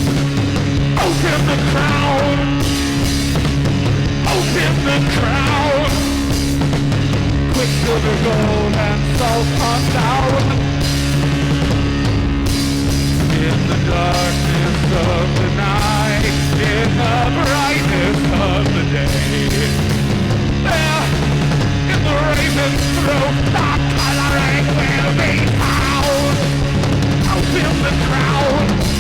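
Live punk-style rock band playing a loud, driving instrumental passage over a steady low drone, with drums keeping a constant beat and wavering melodic lines on top.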